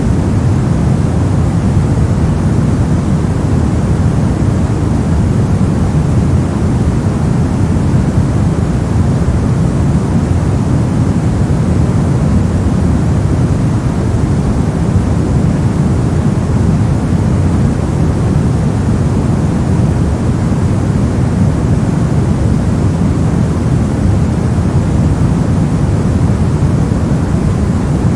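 Steady generated white noise for sleep, even and unchanging, with most of its energy low so it sounds like a deep rush rather than a bright hiss.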